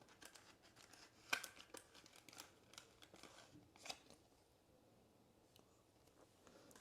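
Faint scattered clicks and plastic rustles of trading cards being handled and slid into sleeves.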